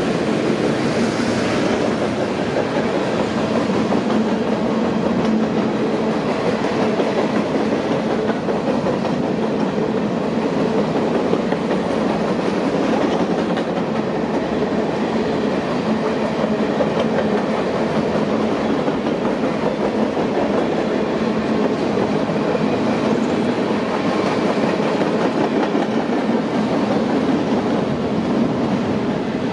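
Freight train cars rolling past on the track: a steady rumble and rattle of steel wheels on rail.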